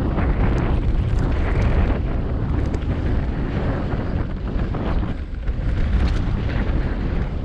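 Wind buffeting the onboard camera's microphone as a mountain bike rolls fast over loose dirt and gravel singletrack, with tyre rumble and small rattles from the bike, easing briefly about five seconds in.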